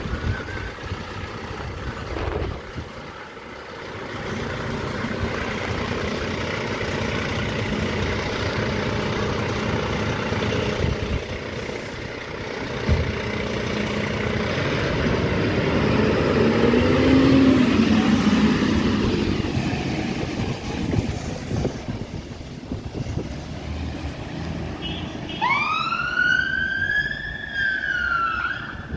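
Volvo FL fire engine's diesel engine running as it pulls out of the station, its note rising about halfway through as it drives away. Near the end its siren wails, one long rise and fall.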